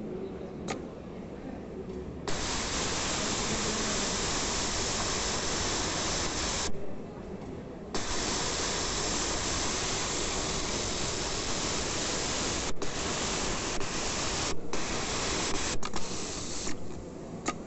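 Pegasus W600 industrial sewing machine, set up for attaching waistbands, running at high speed as a dense steady whir. It starts abruptly, stops for about a second midway, then runs again with a few short stops before halting near the end.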